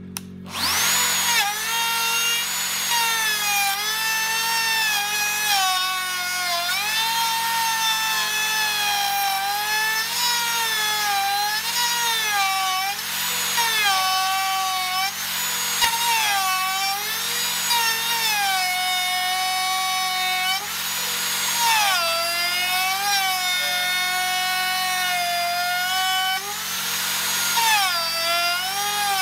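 DeWalt router with a bearing-guided dovetail bit, switched on just after the start and cutting a dovetail mortise into a timber through a plywood template. Its high motor whine dips in pitch again and again as the bit bites into the wood, and climbs back as it frees up.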